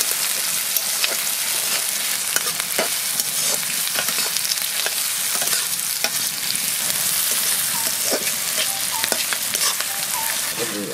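Sliced onions and green chillies sizzling in hot oil in a steel kadai, stirred with a metal spatula that scrapes and clicks against the pan at irregular moments.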